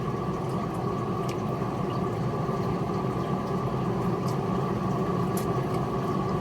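A steady, low mechanical hum, like an idling engine running, with a few faint sharp clicks over it.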